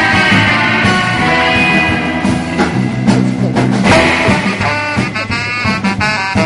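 Background music: an upbeat band track with a steady drum beat.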